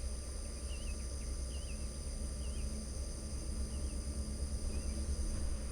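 Steady high-pitched insect chorus of crickets trilling, with a bird giving a short warbled chirp about once a second, five times, over a low steady rumble.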